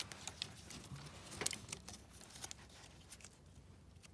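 Scattered light clicks and rustling of hands working a jumper wire onto the pins of an oil pressure switch's electrical connector, with the sharpest click about a second and a half in.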